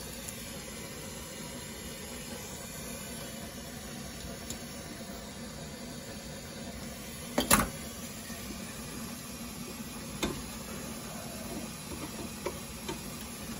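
Steady hiss of a lit brazing torch flame, with one sharp clack about seven and a half seconds in and a lighter click around ten seconds.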